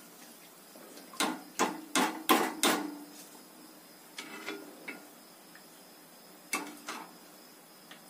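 Metal cooking utensils knocking together: a steel slotted ladle clacking against a wire-mesh frying strainer and the kadai in deep-frying oil. Five sharp clacks come in quick succession, then a few softer ones, then two more.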